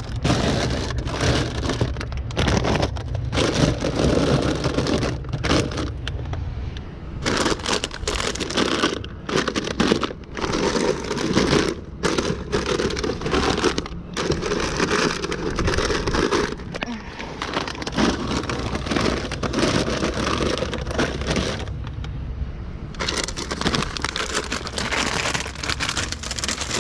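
Plastic bags of chips and snack packages crinkling and rustling as they are handled and set on shelves, with scattered knocks.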